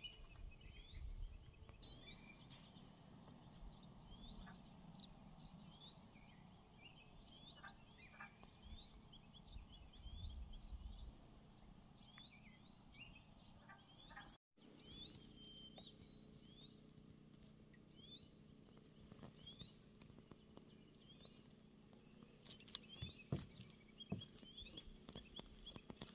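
Faint birdsong: many short, quick chirps from small birds throughout. A low rumble comes twice, and a few sharp clicks sound near the end.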